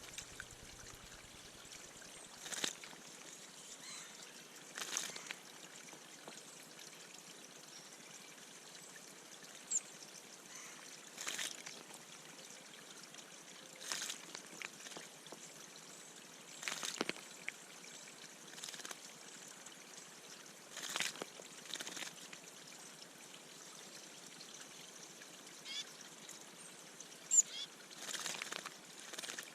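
Birds splashing in a bird bath: short bursts of splashing every couple of seconds over a steady trickle of running water, with a few faint high chirps.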